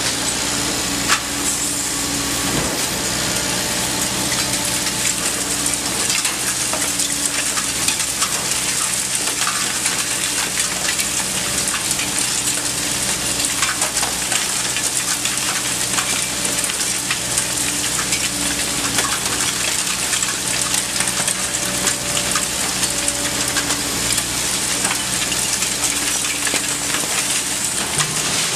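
Liebherr R 950 Demolition excavator at work: its diesel engine runs steadily under a loud, constant rushing hiss, with many small crackles and clatters of debris throughout.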